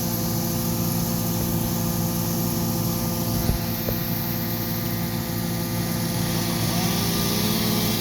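Excavator's diesel engine running steadily, with a single knock about three and a half seconds in.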